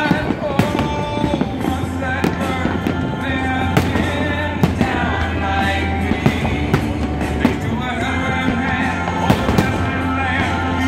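Fireworks going off close by, a string of sharp bangs at uneven intervals, over music with singing.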